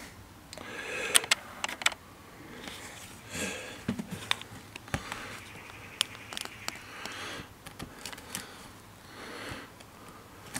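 Handling noise from a camera being moved and refocused: scattered light clicks and taps with soft rustling between them.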